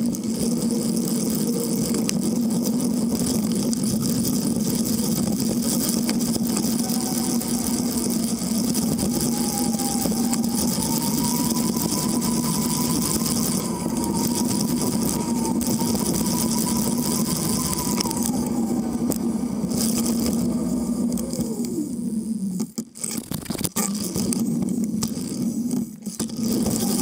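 A cargo bike rolling along the road: a steady hum, with a thinner whine that slowly rises and falls in pitch through the middle, and the hum dropping out briefly twice near the end.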